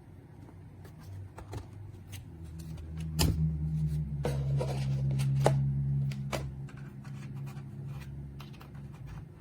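Scattered sharp clicks and taps, like keys or small hard parts being handled, over a low hum that grows louder for a few seconds in the middle.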